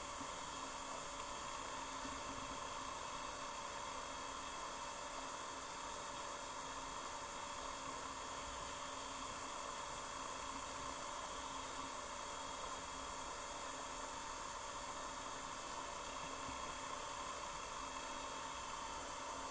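Steady underwater hiss of a flowing stream, heard through a submerged camera, with a faint constant hum and no distinct knocks or clicks.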